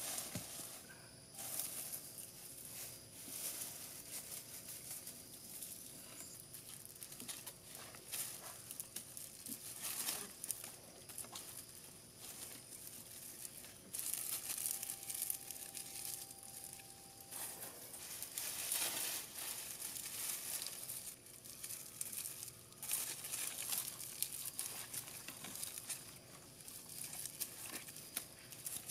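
Long grass stems for thatch rustling and crinkling in the hands as they are gathered into a bundle and bound onto a bamboo strip, with dry leaf litter crackling underneath; irregular handling noise that rises and falls in bouts.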